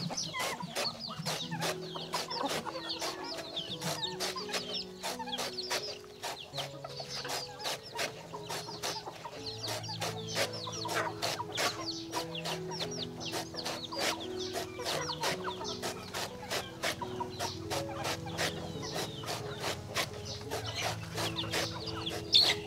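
Chickens clucking, with many short high chirps and a dense run of sharp clicks throughout. Steady background music plays under them.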